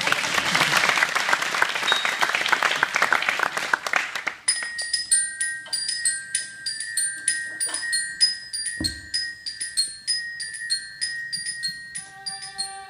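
Audience applause for about the first four seconds, then a tune of quick, bright, ringing bell-like notes from mallet percussion. A lower held melody comes in near the end.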